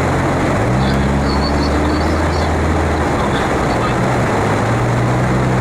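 Steady road noise inside a moving car, with a low engine hum that comes in about half a second in and shifts in pitch twice.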